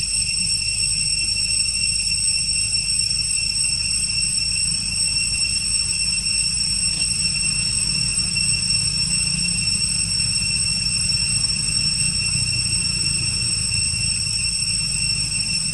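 A steady, high-pitched insect drone that never changes, with a low rumble underneath.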